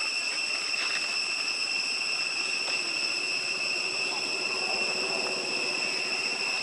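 Steady high-pitched buzzing drone of forest insects, unbroken and even in level, over faint background hiss.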